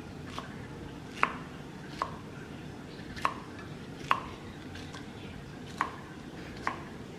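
Knife chopping on a cutting board: about eight single, unhurried strokes roughly a second apart, each a sharp knock with a short ring, the strongest about a second in.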